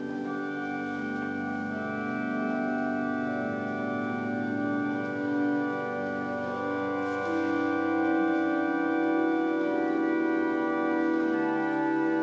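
Organ music: sustained chords held and slowly shifting, with a stronger low note entering about seven seconds in.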